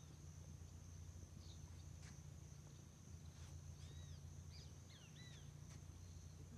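Faint riverside ambience: a steady high-pitched insect drone, with a handful of short, arched bird chirps around the middle and a low rumble underneath.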